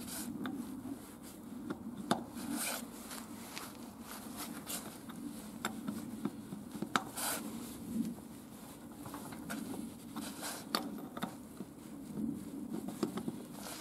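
Steel tire lever scraping and clinking against a tractor wheel's steel rim and rubber tire as it is pried in to break a rust-stuck bead: irregular short scrapes and sharp metallic clicks over a steady low hum.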